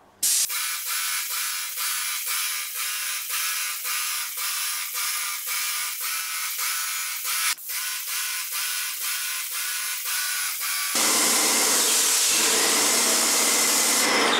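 Wagner Control Pro 250M airless paint sprayer running while spraying: a steady buzz that pulses about twice a second. Near the end it changes abruptly to a steady, fuller hiss.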